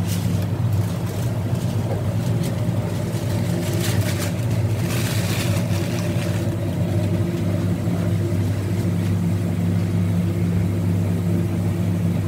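Steady low mechanical hum of commercial kitchen equipment, with a brief rustling noise about five seconds in.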